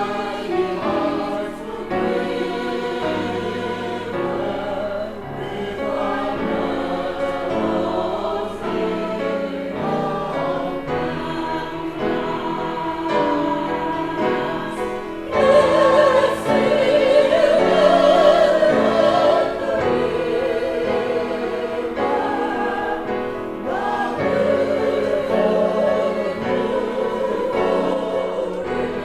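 Church choir singing an anthem, with sustained notes; the singing swells louder about halfway through.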